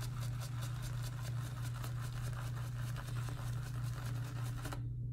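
Boar-bristle shaving brush (Semogue 2000) being swirled and rubbed on a soft shaving-soap puck, a steady scratchy brushing as it loads more soap for lather; the scratching stops near the end. A steady low hum runs underneath.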